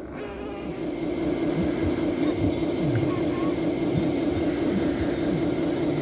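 Radio-controlled truck running: a steady droning hum that grows louder about a second in.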